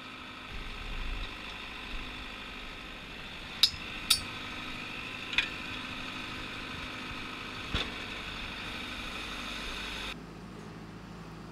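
Track-mounted drill rig's engine running steadily with a whine over a low hum, punctuated by four sharp clinks. Near the end the whine cuts out suddenly, leaving a lower hum.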